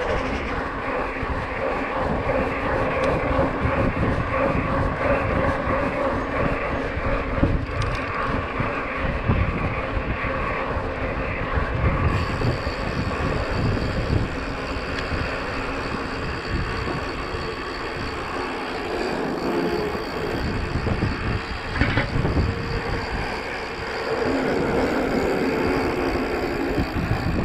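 Knobby 29-inch Maxxis mountain-bike tyres rolling over paving at riding speed, giving a steady tread hum, with wind buffeting the action-camera microphone.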